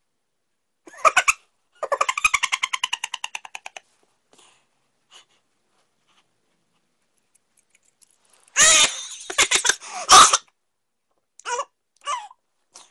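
A young man's wordless vocal reactions to the heat of wasabi: a short cry, then a fast, stuttering run of sounds, then about nine seconds in the loudest strained cries, with short pained sounds near the end.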